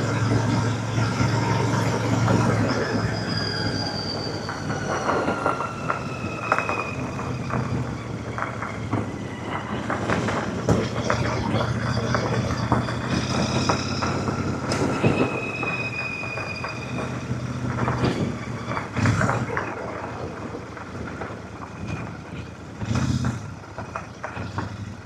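Royal Enfield Super Meteor 650's parallel-twin engine running at low revs as the bike rides down a rough, rutted dirt track, with frequent knocks and rattles from the bike over the ground and several high squeals that slide down in pitch.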